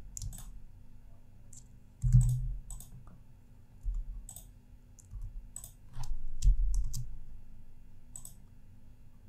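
Computer mouse and keyboard clicks, scattered and irregular, from someone working at a computer, with a couple of dull low thumps about two seconds in and around six seconds in.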